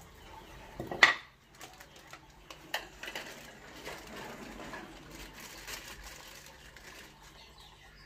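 A plastic bowl and a wooden cutting board are handled and set down on a tiled floor, with one loud sharp knock about a second in and a smaller click near three seconds. After that comes a few seconds of soft crinkling from a plastic bag as a fish is taken out of it.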